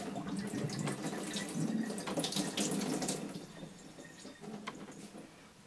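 Water streaming and dripping into a sink as wet knitted wool fabric is squeezed by hand to press out the excess water; the dripping grows fainter near the end.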